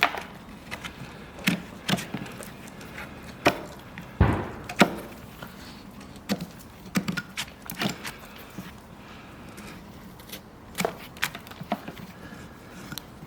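Irregular sharp cracks and knocks of farrier tools working a horse's hoof, with a heavier thud about four seconds in.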